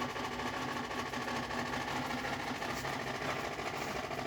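Frigidaire Gallery FGHB2868TF7 refrigerator running with a steady mechanical hum and whir, a constant low tone under it. It is an abnormally loud running noise that the owner likens to a tractor.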